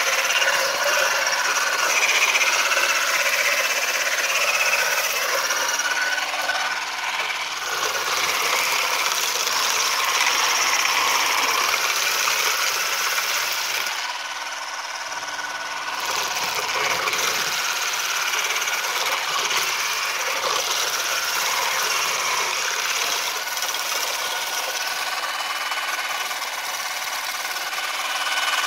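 Castellari Tornado Carbon V3 electric olive harvester running, its counter-rotating carbon prongs combing through olive branches: a steady motor whine over continuous rustling and rattling of twigs and leaves. It is briefly quieter about halfway through.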